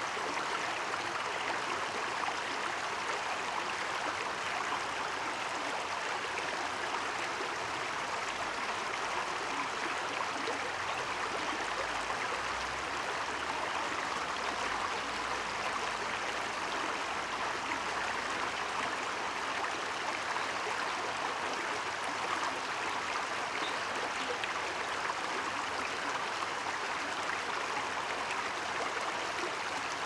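Steady, even rushing noise, like flowing water, with no distinct bird song standing out.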